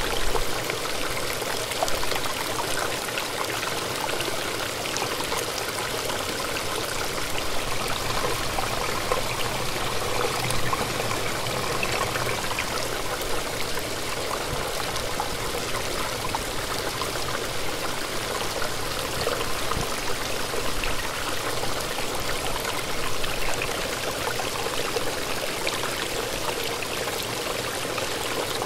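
A brook running with a steady, even rush of water.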